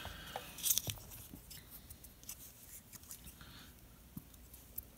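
Faint scattered clicks and light rustling from wire and small tools being handled, with a quick cluster of clicks about a second in and single ticks after.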